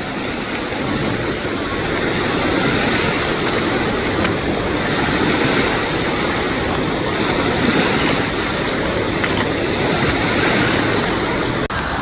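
Wave pool surf washing in and foaming around the shallows, a steady rushing of water.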